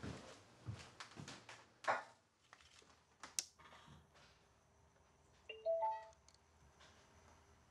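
Portable record player being handled: a few sharp clicks and knocks as the tonearm is set on the record, and a short cluster of ringing tones about six seconds in.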